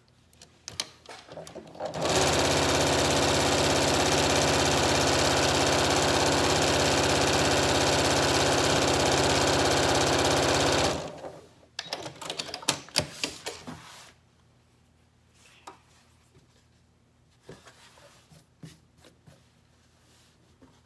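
Janome electric sewing machine stitching at a steady speed, starting about two seconds in and stopping about nine seconds later, as it sews bias tape trim onto fabric. A few light clicks before it starts, and clicks and fabric handling after it stops.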